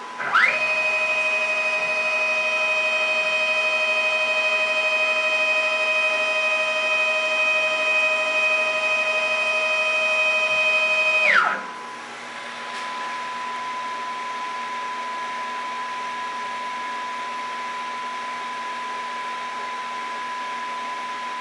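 Stepper motor driving the Y-axis carriage of a small home-built CNC router during a jog move. A steady high-pitched whine rises in pitch as the motor ramps up about half a second in, holds for about eleven seconds, then drops in pitch as it decelerates and stops. A steady electrical hum with a faint high tone is left once the motor stops.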